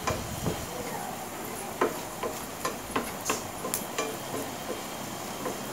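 Spatula stirring onions, green chillies and coriander powder in a frying pan, roasting the powder until its raw smell goes: irregular light clicks and taps of the spatula against the pan over a low frying hiss.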